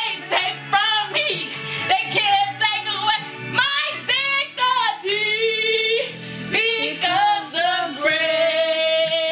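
A woman singing a slow ballad melody over backing music, with sliding notes and a long held note near the end.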